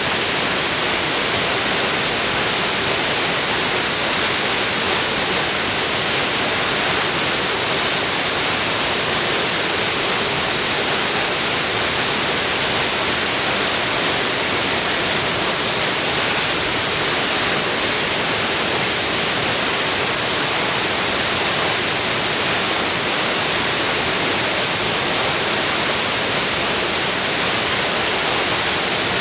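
Steady, loud rushing of a waterfall, an even hiss-like roar that does not change.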